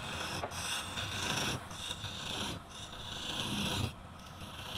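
Hand-held turning tool cutting into a spinning wooden blank on a lathe: a harsh scraping hiss that breaks off briefly every second or so, then comes back.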